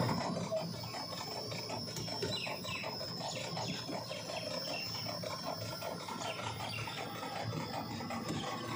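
Small electric ride-on tourist train running along paving, a fast even mechanical rattle with a steady high whine over it, and a few bird chirps about two to three seconds in.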